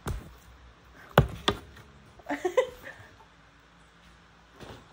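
Hard plastic storage containers and a tray being handled: a click, then two sharp loud clacks about a second in, a faint knock near the end, with a short voice sound between them.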